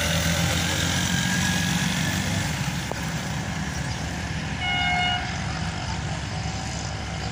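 Low, steady rumble of an approaching diesel-electric passenger train, with one short single-tone horn toot about five seconds in.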